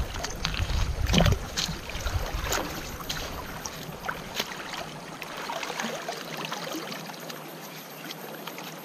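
Creek water running, with splashing in the first second or so and repeated sharp clicks of stones and gravel knocking together as they are shifted and tossed out of a gold pan.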